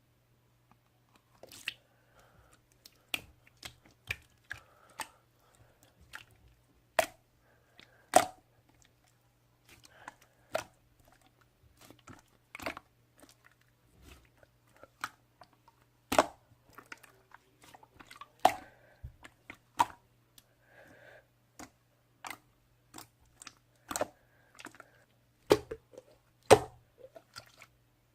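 Slime being pressed and stretched by hand, giving irregular sharp clicks and pops as air pockets burst.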